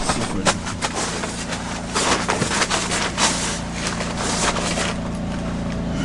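Steady engine hum of a portable generator running, with irregular rustling and shuffling as gear and plastic-wrapped bags are moved around.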